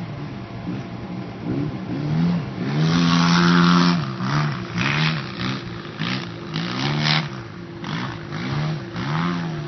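Polaris RZR 800 side-by-side engine revving up and down over and over, its pitch rising and falling about once a second. Bursts of rushing noise come through with it, loudest about three seconds in.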